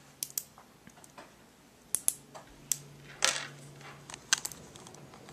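Small neodymium magnet balls from a 216-piece set clicking and snapping together as they are pulled apart and arranged by hand: irregular sharp clicks, with a short clatter of several pieces just after three seconds in.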